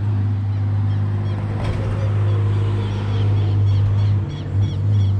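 Engine running with a steady low hum, dipping briefly near the end. Over it, from about halfway in, comes a run of short high chirps, several a second.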